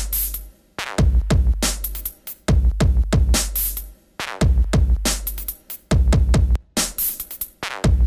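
Electronic background music with a drum-machine beat of sharp hits over held deep bass notes.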